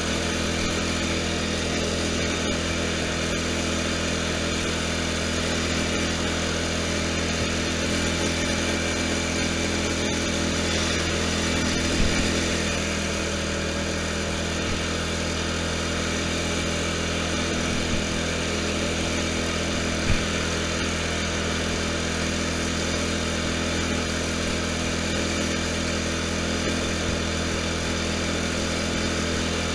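Riding lawn tractor's engine running at a steady speed while being driven, with a few brief knocks about twelve, eighteen and twenty seconds in.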